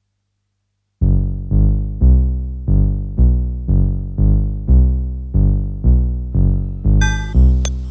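Modular synthesizer music. After a second of near silence, a low bass note sounds about twice a second, each one struck sharply and then fading. Near the end, high ringing tones and sharp clicks join in.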